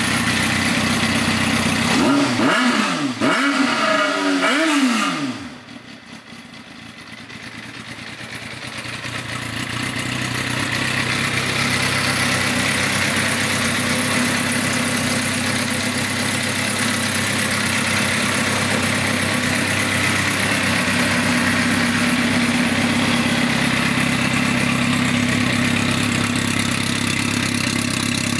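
Suzuki GSX-R600 inline-four engine revved a few times, its pitch rising and falling, during the first five seconds. The sound drops suddenly and then settles into a steady idle.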